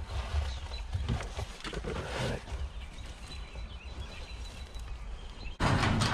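Bundles of freshly cut grass stems rustling as they are handled and laid in a car trunk, over an uneven low rumble. A louder burst of noise starts suddenly near the end.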